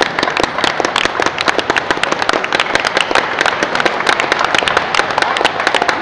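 A small group of people applauding: steady, dense, irregular hand claps.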